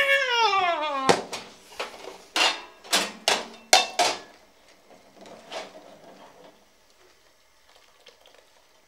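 A woman's voice in a long falling cry, then a metal ladle clanking repeatedly against a stainless steel cooking pot, about eight sharp knocks over three seconds, followed by softer stirring that fades away.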